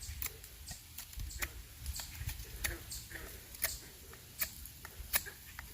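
Light axe strokes shaving the edge of a wooden spatula blank: a string of short, sharp ticks at uneven intervals, about one every half second to second.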